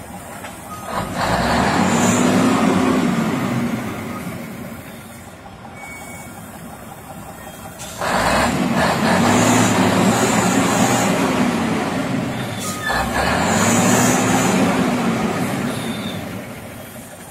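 A heavy truck's diesel engine revving hard three times under load, each rev climbing, holding and falling away, as it strains to pull the loaded tanker out of deep mud.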